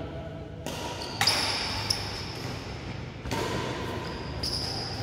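Badminton rally: the shuttlecock is struck by rackets several times, the sharpest hit just over a second in, with players' footsteps on the court floor. A steady low hum runs underneath.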